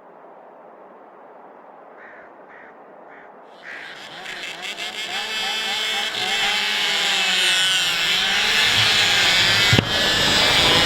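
Small-displacement racing motorcycle engines revving, their pitch rising and falling, growing steadily louder from about four seconds in.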